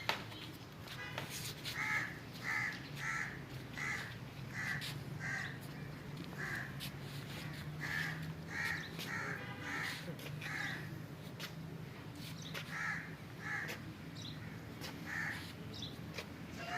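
Repeated short bird calls, more than a dozen at uneven intervals, over a steady low hum.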